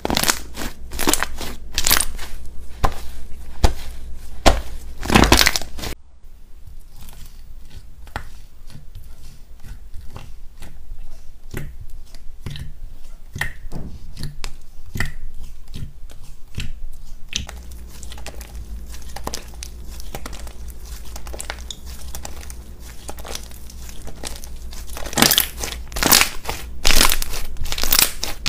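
Hands squeezing, kneading and poking thick white slime, making dense crackling clicks and small pops. The crackling is loud at first, drops to softer scattered pops in the middle, and grows loud again near the end.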